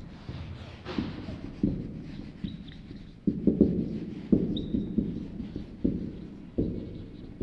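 Marker pen writing on a whiteboard: a run of short strokes and taps against the board, with a couple of brief high squeaks from the marker tip.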